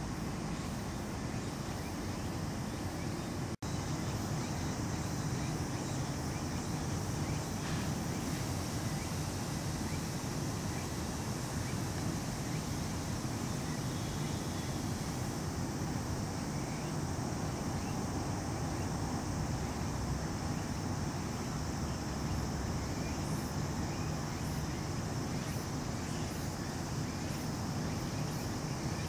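Steady low background rumble with no distinct events, cutting out for an instant about three and a half seconds in.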